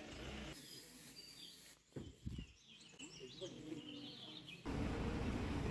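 Quiet outdoor ambience with small birds chirping, and a couple of low thumps about two seconds in. About a second before the end it switches abruptly to the steady low rumble of a bus running.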